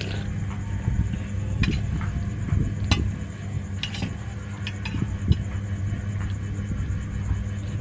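A spoon clinking against a bowl a few times during eating, sharp clicks spaced about a second apart, over a steady low hum.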